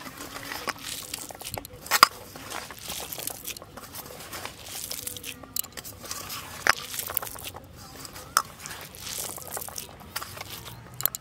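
A hand squishing and kneading rice in a steel plate, with irregular scrapes and sharp clicks of fingers against the metal.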